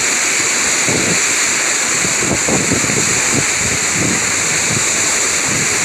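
Steady wind blowing across the microphone, mixed with the wash of sea waves, with irregular lower surges and gusts.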